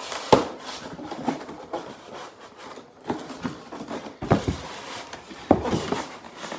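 Handling noise from a hoverboard and its packaging: irregular rubbing and scraping. There is a sharp knock about a third of a second in, and louder knocks around four and five and a half seconds in.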